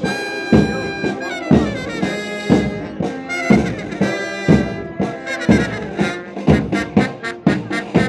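Military marching band playing a march: brass holding the melody over drums struck about twice a second.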